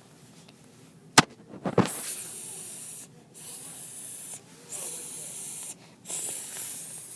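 A sharp click, then a hissing spray sound in four bursts of about a second each, like an aerosol spray being used.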